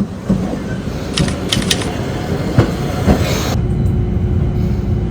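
Rail vehicle running: a steady rumble with wheel clacks and a few brief high squeals about a second in. The sound changes abruptly a little past halfway.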